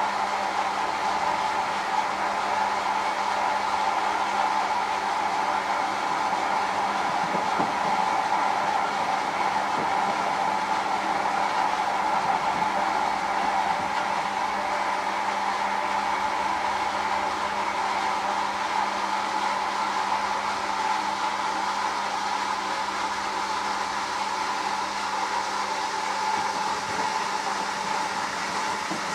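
Hoover AXI washing machine running steadily through its delicate 40°C cycle, a constant rushing noise with a low hum that eases off slightly near the end.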